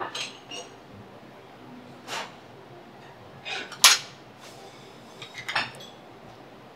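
Dishes and utensils clinking and knocking in a series of short, sharp taps, the loudest a little under four seconds in.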